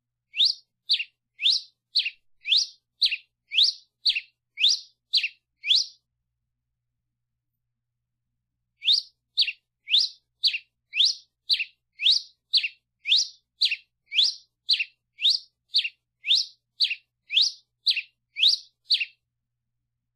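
Red-crested finch (Coryphospingus cucullatus) calling: a run of short, high chirps at about two a second, each sweeping up or down in pitch. The chirps break off for about three seconds, then resume in a longer run.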